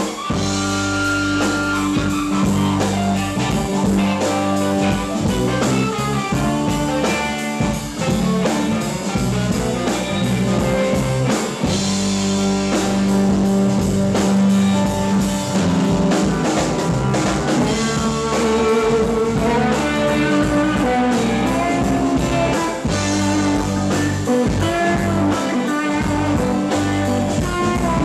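Live rock band playing an instrumental passage, with guitar lines over drums and keyboard, and no singing.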